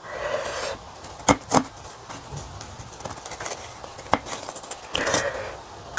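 Chopsticks working through a whole head of spicy napa cabbage kimchi on a ceramic plate, clicking sharply against the plate a few times.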